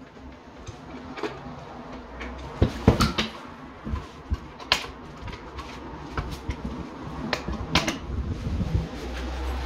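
Sharp plastic clicks and knocks as a double wall socket faceplate is worked with a screwdriver and pressed onto its back box, the loudest a few seconds in and again later on. A low rumble sits underneath, swelling near the end.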